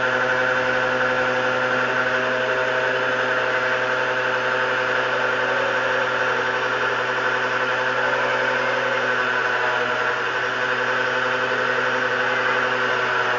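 Lotus pressure washer's motor running at a steady pitch and level: a continuous hum with a whine above it.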